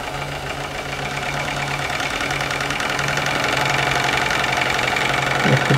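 Small homemade twin-cylinder, double-acting brass steam engine running fast on live steam: a rapid, even mechanical clatter from its pistons and crank linkage. It grows louder over the first few seconds, then holds steady.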